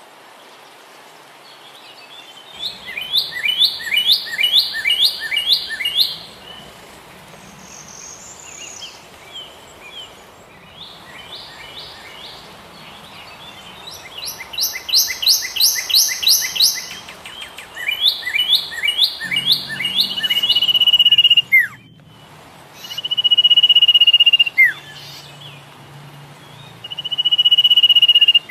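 A songbird singing: runs of quickly repeated sweeping notes, about three a second, and in the second half three long held whistles, each ending in a quick falling slur.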